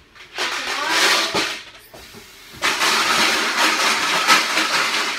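Tap water running hard into a sink to rinse aquarium gravel. It runs in two stretches, with a short break about two seconds in.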